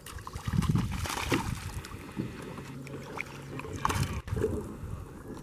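Hooked largemouth bass splashing and thrashing at the water's surface beside a small boat, with the heaviest splashes about a second in and again near four seconds as it is grabbed by hand.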